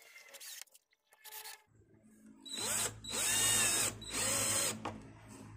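Cordless drill/driver driving the mounting screws that fasten a woofer's frame into a speaker box: three short runs of the motor starting about two and a half seconds in, the middle one the longest, each speeding up and winding down.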